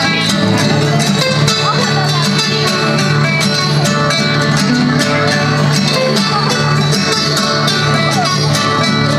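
A group of acoustic guitars, nylon- and steel-string, playing a tune together, strummed in a steady rhythm.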